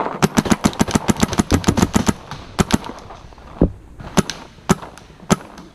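Paintball markers firing: a fast string of shots, about eight a second, for roughly two seconds, then single shots every half second or so.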